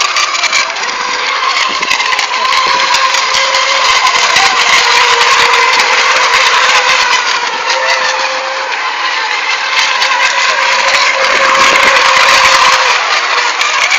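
FSR-E class electric radio-controlled racing boats running at speed, with a steady high motor whine over a hiss of noise.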